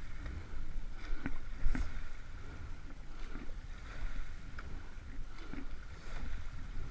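Rowing shell under way at about 28 strokes a minute: water rushing along the hull and oar blades, with a few sharp knocks from the oars and rigging. Wind buffets the microphone with a steady low rumble.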